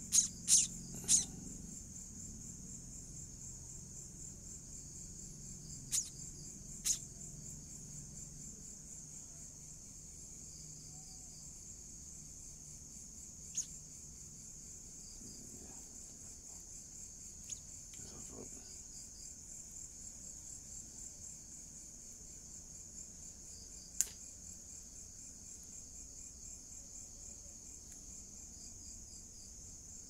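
Steady, finely pulsing high-pitched chirring of crickets at night. A few brief sharp sounds stand out over it: three close together right at the start, then single ones scattered later.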